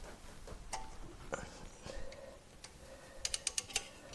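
Scattered metal clicks and clinks from a socket wrench on the ball joint pinch-bolt nut, with a quick run of about five sharp clicks near the end.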